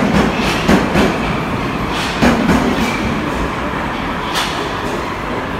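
An 81-722.1/723.1/724.1 'Yubileyny' metro train pulling out of the station: a steady rumble of wheels on rails, broken by irregular sharp clacks of the wheels over the track, several in the first half and one more near the end. The rumble eases slightly as the train draws away.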